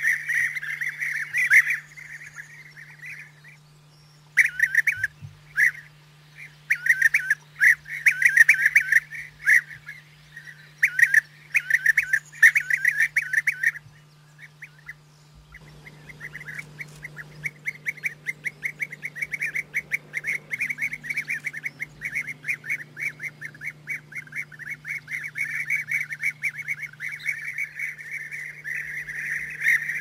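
European bee-eaters calling: short trilled calls in bursts through the first half, then near-continuous calling from about the middle on.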